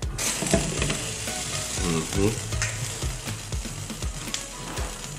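A pot of potatoes at a rolling boil, hissing and bubbling, with a fork clinking against the pot as they are stirred; the glass lid clinks back onto the pot.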